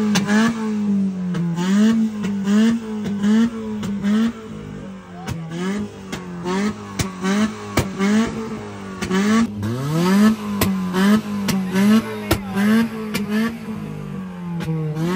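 Suzuki Cultus engine revved over and over in quick throttle blips, about two a second, its pitch climbing and dropping each time, with one longer climb from low about two-thirds of the way in. Sharp exhaust pops and crackles run through the revving.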